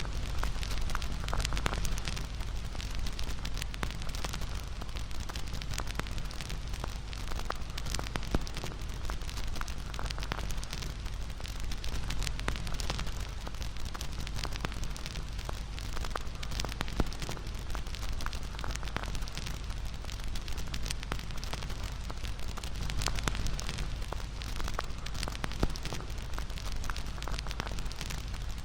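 Wood fire burning: a steady low rumble of flames with frequent irregular crackles and pops of burning wood.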